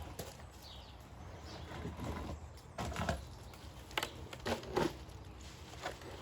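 Irregular knocks and clatter as a pond filter drum and its filter media are handled and tipped into a bag. The strongest hits come in a cluster around the middle.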